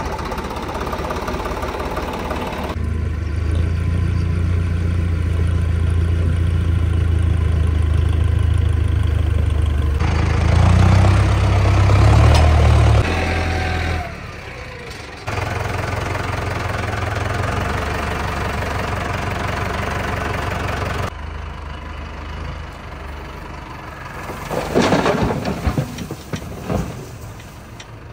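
Diesel tractor engines running, one clip cut to the next, one engine working harder and louder for a couple of seconds near the middle. Near the end comes a short burst of clattering knocks.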